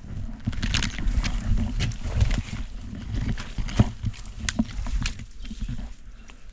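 Scrub rustling and twigs snapping and knocking as a camera on a hiking pole is pushed through dense bushes, over a steady low rumble of wind and handling on the microphone.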